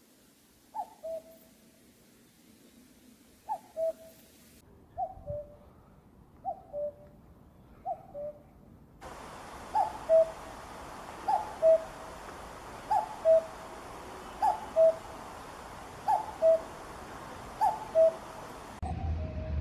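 Common cuckoo calling its two-note "cuck-oo", the second note lower, about a dozen times. About halfway through, the recording changes to one with a steady background hiss, where the calls come regularly about every one and a half seconds.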